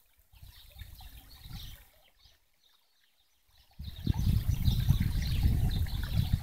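Wind gusting on the microphone: a low rumble that comes and goes, much stronger from about four seconds in after a brief lull.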